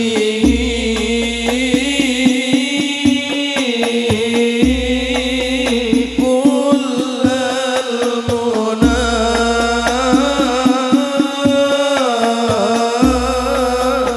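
Male voice singing an Arabic sholawat in long, wavering held notes over steady rebana frame-drum strokes, with a deep bass tone that comes and goes every few seconds.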